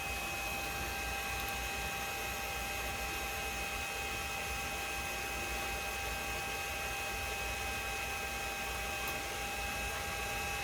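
Bridgeport milling machine running steadily at low spindle speed while a tap winds into a Delrin part: an even electric whine over a low hum.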